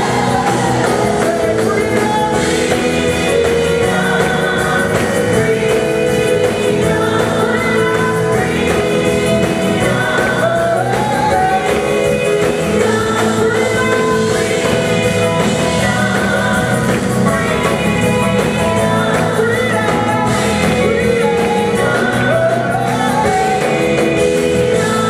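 Live gospel song: a small group of singers on microphones, backed by drums, bass guitar and keyboards, holding long notes in harmony over a steady band.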